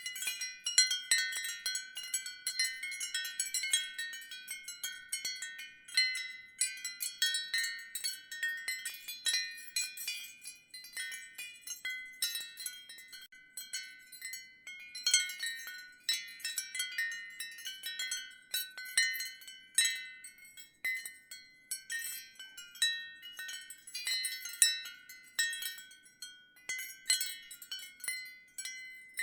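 Ceramic wind chimes clinking: irregular clusters of high, bright ringing tones, with brief lulls between flurries.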